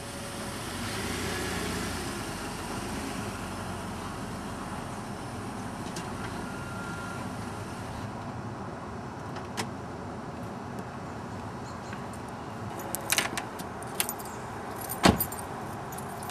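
Steady outdoor traffic hum, with a brief jingle of keys near the end followed by a single sharp knock.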